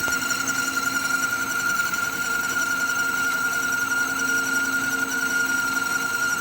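BCA mini jig borer running steadily with its power fine feed engaged, a steady high-pitched machine whine from its motor and drive.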